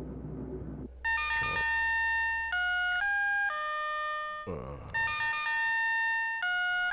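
Mobile phone ringing with a polyphonic ringtone: a bright electronic melody of stepped notes starts about a second in and plays its phrase twice.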